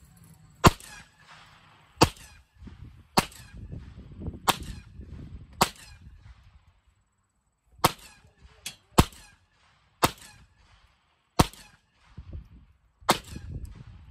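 A string of about eleven gunshots fired in quick succession, roughly one a second, with a short pause midway and two shots fired close together after it.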